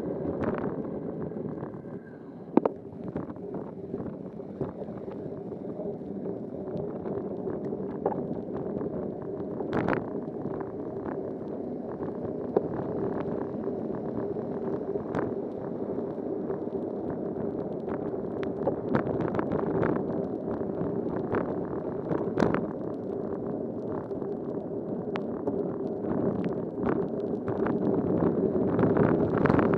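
Bicycle riding on a rain-wet road, heard through a rain-spattered bike-mounted camera: a steady muffled rush of wind and wet tyre noise with a low hum, dotted with scattered sharp taps, the loudest a little over two seconds in. The rush grows louder near the end.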